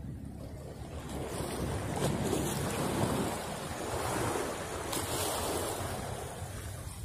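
Small waves washing and splashing against the boulders of a rock jetty, swelling and easing several times.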